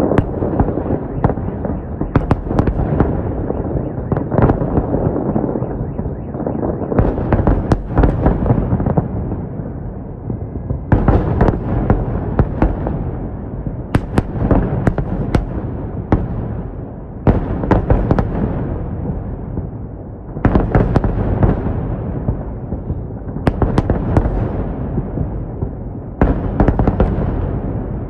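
Fireworks salute going off in salvos, a new one about every three seconds. Each salvo is a cluster of sharp bangs followed by a rolling rumble and crackle that fades before the next.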